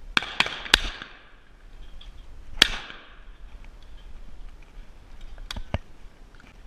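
Two shots from a 20-gauge side-by-side shotgun: the first comes within the first second among a few sharp cracks, and the second, the loudest, about two seconds later with an echoing tail. Two light clicks come near the end.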